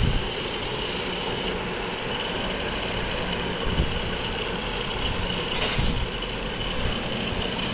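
Hot air blower running steadily, blowing onto a DHT22 temperature-humidity sensor to heat it, with a brief higher hiss about six seconds in.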